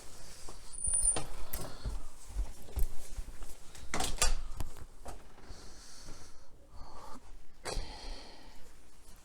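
Footsteps with a few scattered knocks and clicks, the sharpest about four seconds in and again near the end, and a brief high squeak about a second in.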